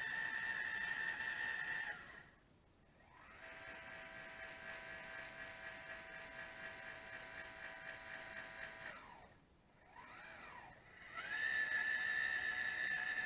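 Celestron Astro Fi 130 telescope mount's slewing motors whining as the tube moves. The high whine stops and restarts twice, runs at a different pitch in the middle, and glides back up to speed near the end.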